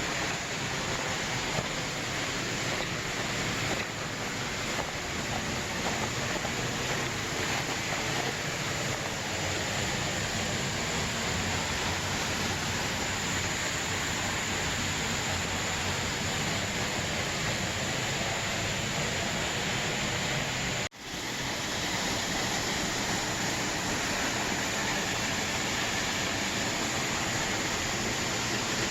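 Waterfall rushing with a steady, even noise that briefly cuts out about two-thirds of the way through, then returns.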